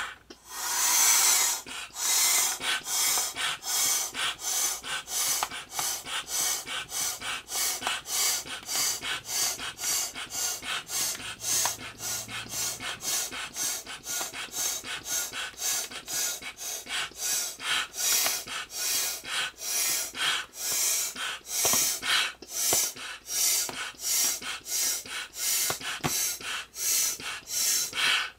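Manual air pump inflating a vinyl swim ring through a hose: a steady run of hissing puffs, about two strokes a second.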